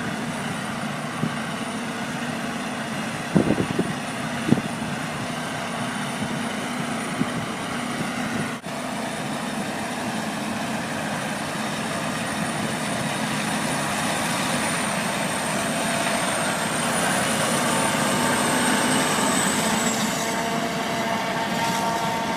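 A heavy machine running steadily, with a few sharp knocks about three and a half and four and a half seconds in, and a faint high whine that drops away near the end.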